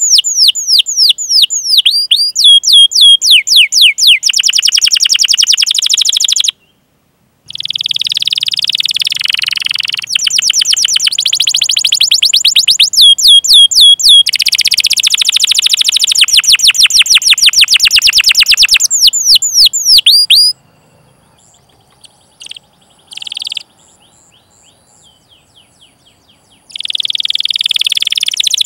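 Canary singing long, fast rolls of repeated high chirps. The song breaks off for a moment about a quarter of the way in, and again near the end for several seconds with only a few faint chirps, before resuming.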